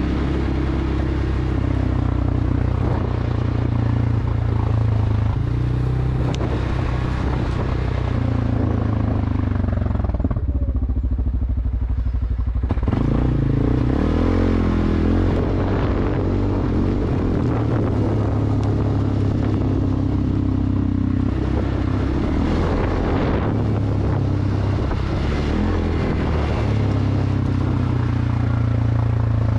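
CFMoto 600 ATV's single-cylinder engine running under throttle, its pitch rising and falling as the rider works the throttle. About ten seconds in it eases to a lower, quieter note, then picks up again about a second and a half later.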